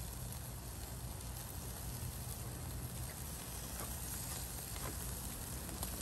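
Meat sizzling on a grill over hot charcoal: a steady hiss with a few scattered pops and crackles as fat drips onto the coals.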